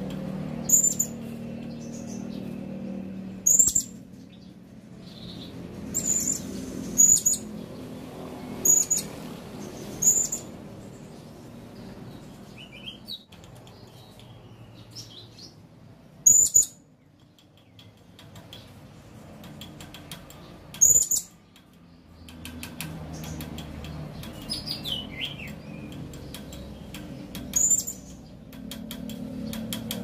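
Male blue-crowned hanging parrot (serindit) calling: about nine short, sharp, high-pitched notes a few seconds apart, with a few fainter thin falling whistles between them, over a steady low background hum.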